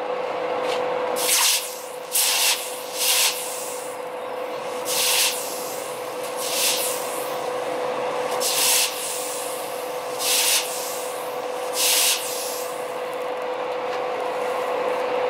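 Red-hot leaf-spring steel cleaver blade being quenched in a bucket of water to harden it, dipped in and out repeatedly. Each dip gives a short, loud sizzle, about eight in all at gaps of one to two seconds, over a steady hiss of water flashing to steam. A constant hum runs underneath.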